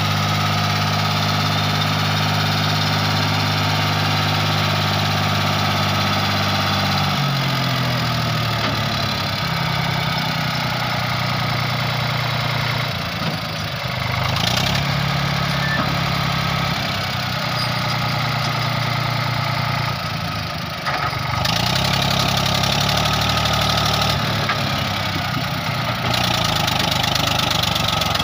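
Eicher 485 tractor's three-cylinder diesel engine running while working a tipping trailer in soft sand. Its speed holds steady for the first seven seconds or so, then drops and rises again several times.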